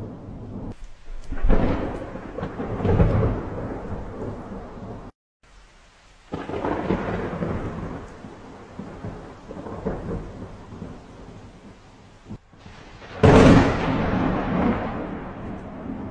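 Thunder rolling in several long rumbles over a steady bed of rain, with the loudest, sharpest clap about 13 seconds in. The sound drops out to silence twice, briefly.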